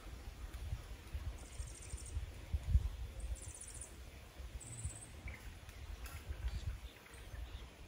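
Uneven low wind rumble on the microphone, with three short, high, rapid chirping trills in the first five seconds, like a small bird or insect calling.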